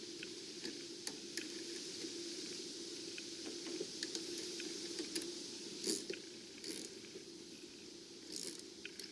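Hand tool tightening the nut on a battery cable clamp: irregular metallic clicks and clinks of the wrench on the terminal, with a few quick clusters in the second half, over a steady low hum.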